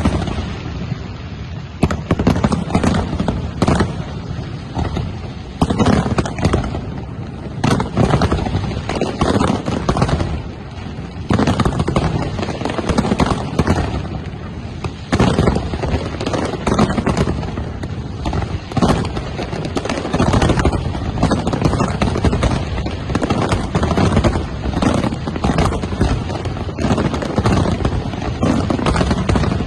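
Fireworks display: shells bursting one after another, a loud bang every second or so over an unbroken din of smaller bursts.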